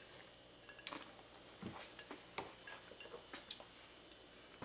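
Quiet room with a few faint scattered clicks and one soft knock about a second and a half in, as a rocks glass holding a large ice cube is sipped from and handled.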